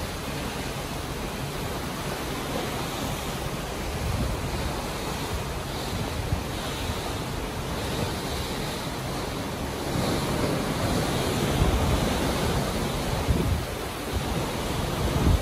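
Sea water rushing and foaming along the hull of a large moving ship, with wind buffeting the microphone in gusts that grow louder about two-thirds of the way through.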